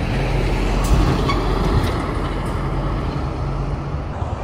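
A vehicle running with a steady low hum and a wash of travelling noise, with a few faint clicks.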